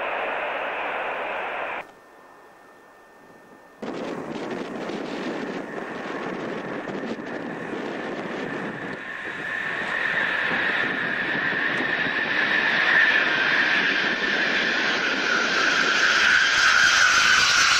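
Four-engined Boeing 707 jet noise: a first engine rush cuts off about two seconds in, and after a short lull a 707 on final approach comes in, its roar and high engine whine growing steadily louder as it passes low and close, the whine dropping slightly in pitch near the end.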